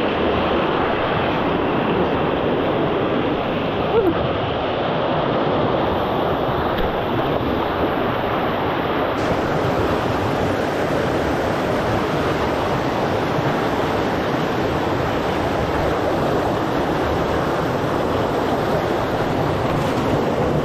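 Mountain stream rushing steadily down a smooth rock chute, an even, continuous rush of water. A brief short sound stands out about four seconds in.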